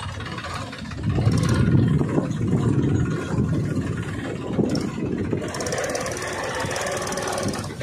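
Small engine of a homemade mini tractor running steadily as it pulls a trolley loaded with children, getting a little louder about a second in.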